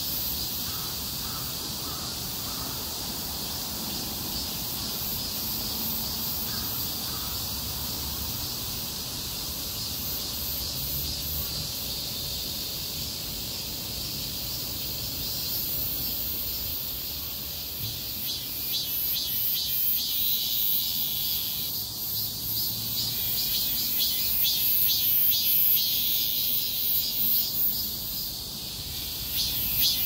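Cicadas singing in a steady, high-pitched chorus. From about eighteen seconds in, a louder, rapidly pulsing call joins and swells and fades several times.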